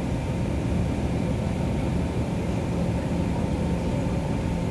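Iveco Crossway bus on the move, heard from inside the passenger cabin: a steady drone of engine and tyre noise with a low rumble and a faint steady hum.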